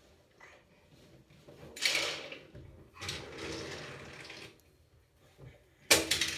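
Box braids rustling and swishing as hands plait them, in two long swishes, followed by a sharp clatter near the end.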